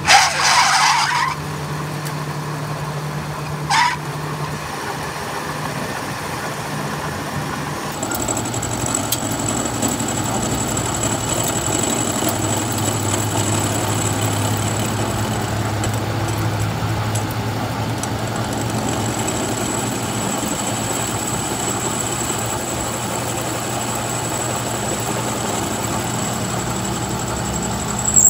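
Metal lathe running with a steady motor hum, turning down the weld on a welded axle shaft; a ringing metallic clank at the start and a short click about four seconds in, then a steady high whine from about eight seconds in as the tool cuts the steel.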